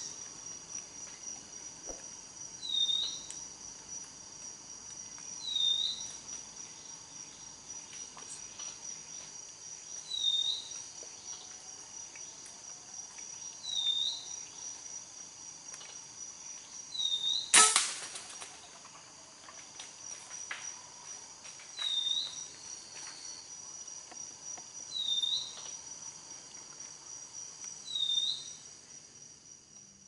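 A single sharp air-rifle shot cracks a little past halfway. Behind it, a steady high insect drone and a short chirp repeat every three to four seconds.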